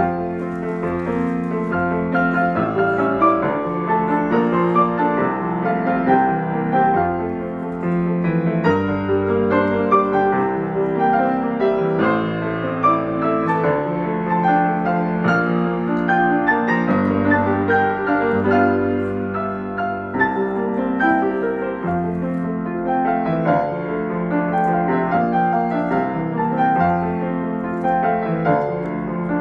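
Background music led by piano, with a sustained bass line.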